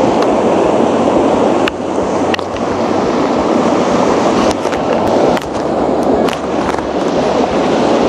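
Mountain stream rushing over rocks and small cascades in a loud, steady wash of water noise, with a few sharp clicks now and then.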